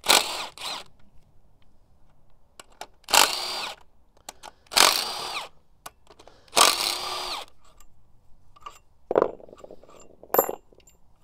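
Cordless power tool running in several short bursts as it spins out the bolts that hold the oil pump to the engine block, its motor whine rising and falling with each run. A few sharp metallic clicks near the end.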